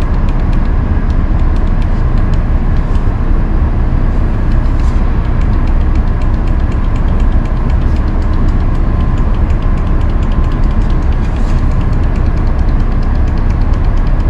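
Steady, loud low drone of industrial machinery running, with a faint hum and a fast, even ticking throughout, from the CNC stone saw's machine drives and the shop around it while the head is jogged in small steps.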